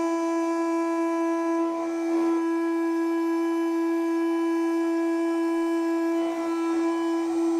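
CNC router spindle at 20,000 rpm driving an end mill through a full-depth finishing pass in aluminium, climb milling at a 0.3 mm stepover. It gives a loud, steady, high-pitched whine at the spindle's rotation rate, which turns briefly rougher about two seconds in and again near the end.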